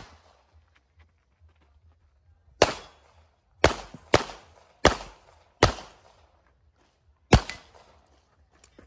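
Six handgun shots at uneven spacing, each with a short echoing tail, the last coming after a longer pause.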